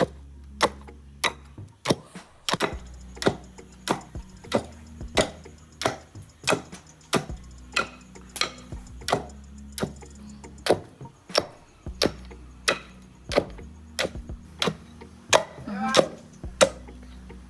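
Pestle pounding cooked palm nuts and turkey berries in a mortar, a steady thud about every two-thirds of a second, crushing the pulp off the nuts for soup.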